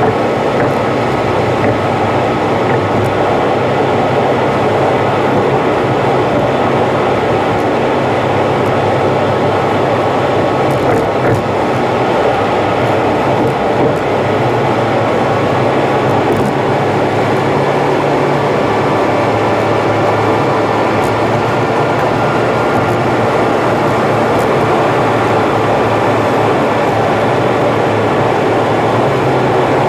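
Steady road and engine noise from a car driving on an expressway, sped up about three times.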